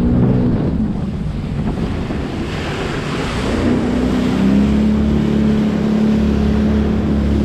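Jet ski engine running at speed across choppy water, with wind buffeting the microphone and spray hissing. About four seconds in the engine settles into a steady, even drone.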